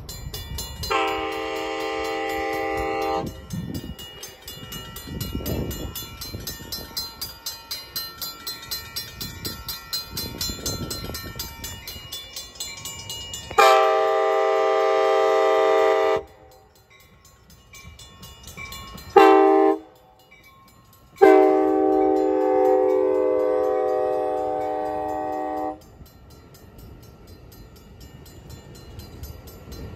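Railroad crossing warning bell ringing steadily while an Amtrak Capitol Corridor passenger train's horn sounds the grade-crossing signal: long, long, short, long. The last blast is held for several seconds, then the train rumbles past the crossing.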